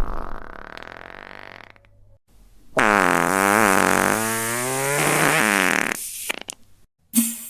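A series of fart sound effects. The tail of one fades out, and after a short pause comes a long, loud fart of about three seconds with a wavering pitch. Two brief pops follow, and another short fart starts near the end.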